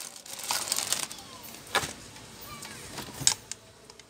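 Clear plastic bag crinkling as it is handled, then two sharp clicks about a second and a half apart.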